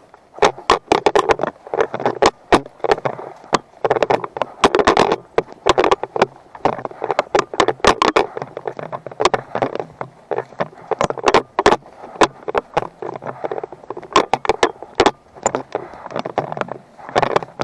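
A loosely secured GoPro camera rattling and knocking in its mount: a fast, irregular run of sharp clicks over a rustling noise.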